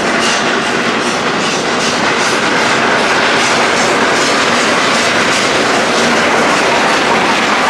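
Garratt steam locomotive working hard with heavy smoke, its exhaust beating at about three beats a second; the beats fade after about five seconds as passenger coaches roll past with wheels clattering over the rails.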